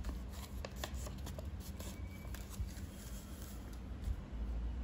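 A sheet of A4 paper being folded and pressed flat by hand, with light crinkles and rustles, most of them in the first second or so, over a low steady hum.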